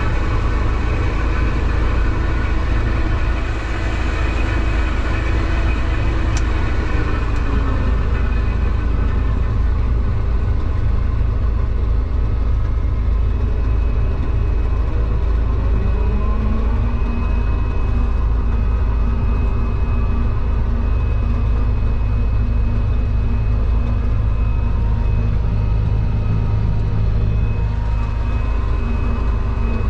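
New Holland TR89 combine harvester running while harvesting oats: a steady engine drone with several whining machinery tones over it. One whine falls in pitch about eight seconds in, and another rises around sixteen seconds.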